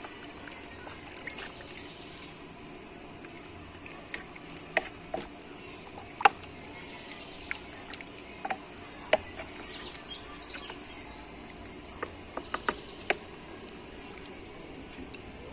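Chicken stew simmering in a pot over a wood fire: a steady hiss with scattered, irregular sharp pops of bubbles breaking.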